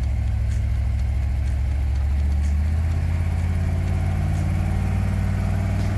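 1962 Ford F100's 289 V8 engine running as the truck drives, its Holley carburetor freshly tuned; the engine note rises about two and a half seconds in as it picks up speed.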